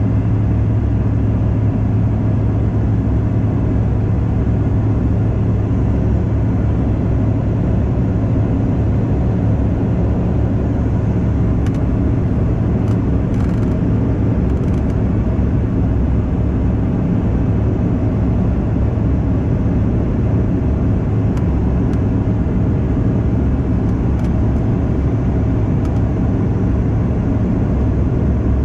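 Steady in-flight cabin noise of a Bombardier CRJ200 regional jet: a constant low hum with a broad rush of airflow and its rear-mounted General Electric CF34 turbofan engines, holding an even level throughout.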